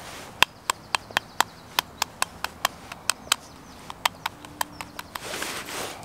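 Knife blade tapping on a hen's eggshell: a rapid, uneven series of about twenty light, sharp taps, about four a second with a short pause midway, chipping a small hole in the shell. A brief rustle near the end.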